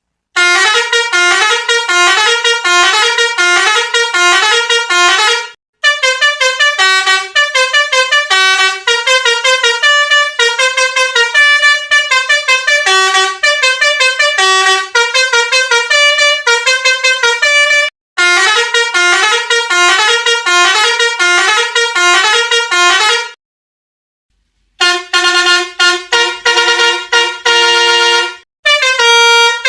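Telolet horn, a multi-tone musical bus horn, playing fast jingle-like tunes of short alternating notes. It pauses briefly a few times, the longest break about a second and a half.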